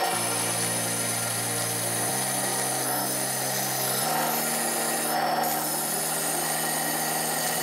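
Proxxon benchtop disc sander running, with a thin strip of wood pressed against the spinning abrasive disc, giving a steady sanding hiss. Under it, low held background-music notes change about every two seconds.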